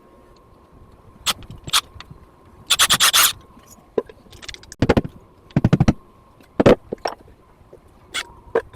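Hands-on work noises while wiring: scattered sharp clicks and scrapes, with two short runs of rapid ratcheting clicks, one about three seconds in and another near the middle.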